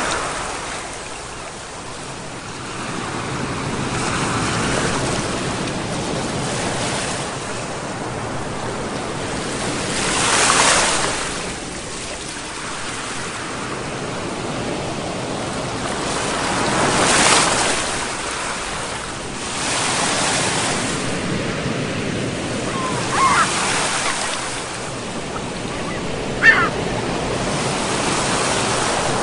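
Ocean surf: a steady rush of waves, with two waves swelling and breaking louder, about a third of the way in and again past halfway. Two short high calls sound near the end.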